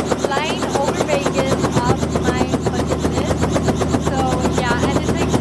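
Helicopter running close by: a rapid, even chop of the rotor blades over a steady low engine hum.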